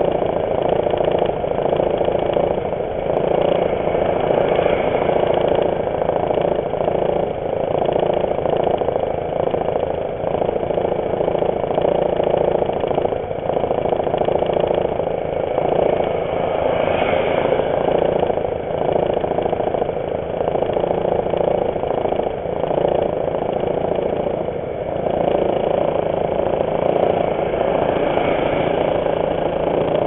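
Engines idling steadily at a standstill: the motor scooter's own engine and the dump truck stopped just ahead.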